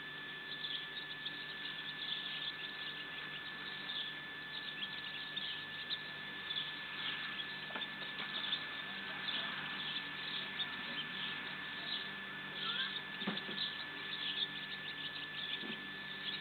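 Small birds chirping in many short calls all through, with a steady high tone running under them.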